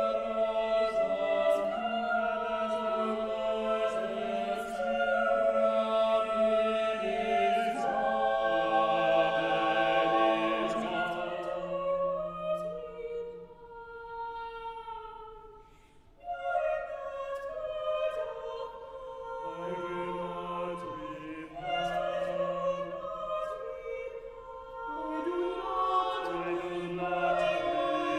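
Church choir singing held, overlapping chords in several parts. About fifteen seconds in, the voices thin out and nearly stop, then come back in together.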